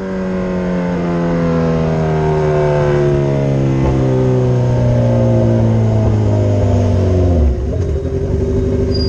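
Kawasaki Z1000 inline-four with an Akrapovic megaphone full-system exhaust, heard while riding. The engine note sinks slowly as the revs fall for about seven seconds, breaks briefly, then settles lower and steady. Wind rumbles on the microphone throughout.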